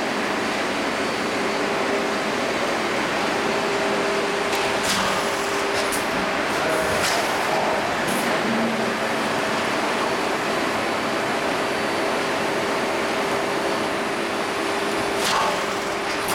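CNC steel-sheet leveling and shearing line running: a steady mechanical hum with a held tone, broken by a handful of sharp clicks or knocks, most of them in the middle and one near the end.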